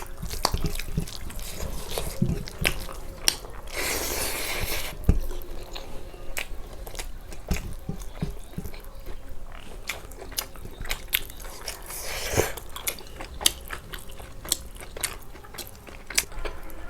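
Close-miked eating of pork fry and rice: chewing and biting with many small crunches and mouth clicks, and two longer noisy sounds about four and twelve seconds in.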